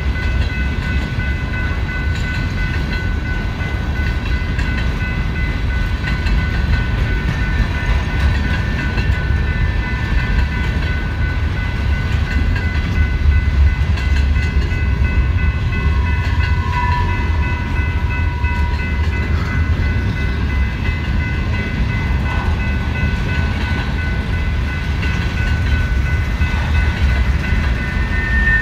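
Cars of a mixed freight train (boxcars, gondolas and covered hoppers) rolling past at a grade crossing: a continuous steady rumble of wheels on rail, with steady high-pitched tones above it.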